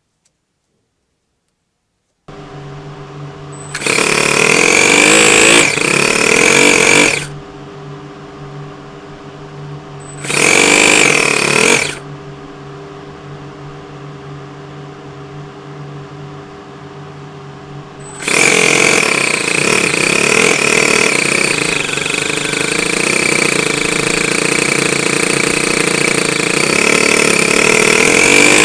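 Miniature two-cylinder four-stroke model engine fitted with a blow-through centrifugal supercharger, running. After a couple of seconds of silence it starts at a steady low speed, revs up briefly twice, then is held at high revs from about two-thirds of the way in, with a high whine over the loud stretches.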